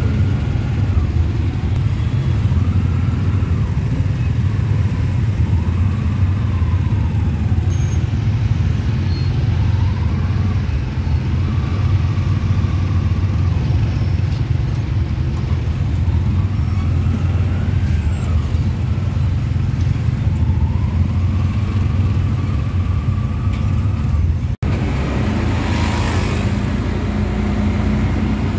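Auto-rickshaw's small engine running with a steady low drone while riding in dense motorbike traffic. A faint whine rises and falls every few seconds, and a short hissing rush comes near the end.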